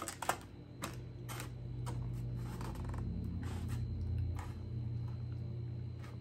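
Light clicks and crackles of a clear plastic clamshell food container as mini corn dogs are picked out of it, over a low steady hum that comes in about a second in and fades near the end.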